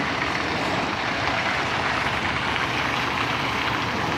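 Flatbed tow truck's diesel engine running steadily as the truck pulls away with a car loaded on its deck.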